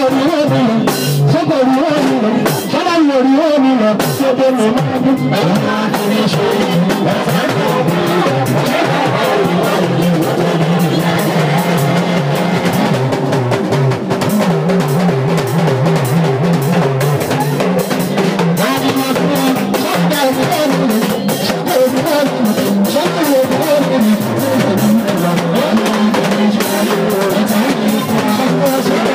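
Live church music through a PA: a man singing into a microphone over an electronic keyboard, with a steady drum beat.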